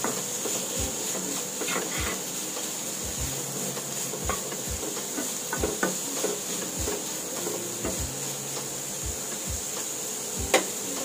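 Wooden spatula stirring and scraping chopped shallots, garlic and curry leaves in a nonstick kadai, knocking against the pan irregularly about once a second, over a steady sizzle of the onions frying in hot oil as they soften.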